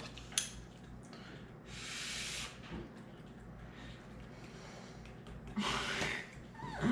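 A person eating and breathing: a small click, then a soft breath out about two seconds in, and another breath shortly before the end.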